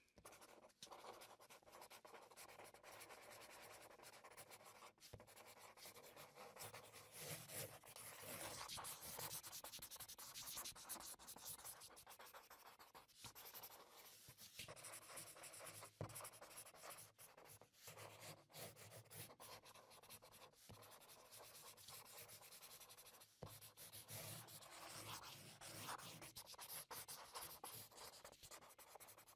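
Thin paintbrush rubbing paint onto paper: faint, continuous scratchy strokes.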